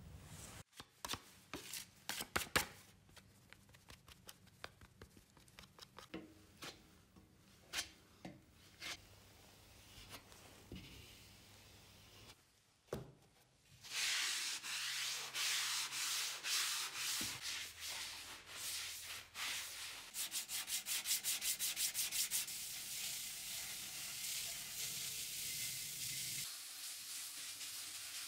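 Scattered light scrapes and taps from body filler and hardener being worked on a metal spreader. About halfway through comes steady hand-sanding of cured body filler on a steel motorcycle fender with a sanding sponge: rasping back-and-forth strokes, fast and even for a couple of seconds.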